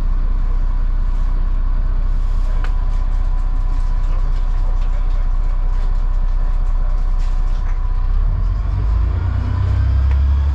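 Dennis Trident double-decker bus engine running steadily while the bus is under way, heard from inside on the upper deck, with a few light rattles. About eight seconds in, the engine note deepens and grows stronger.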